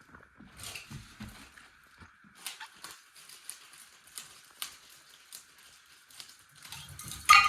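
Plastic bag of water being handled and worked open: crinkling and scattered sharp crackles and clicks, with one much louder sharp sound near the end.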